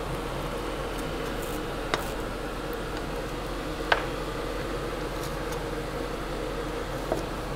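Knife slicing a cooked ribeye steak on a cutting board, the blade knocking on the board three times, over a steady background hum.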